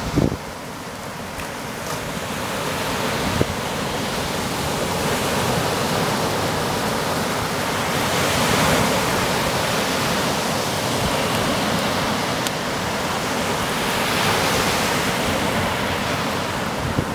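Baltic Sea surf breaking on a sandy beach: a steady wash of waves that swells up twice, about halfway through and again near the end, with some wind rumbling on the microphone.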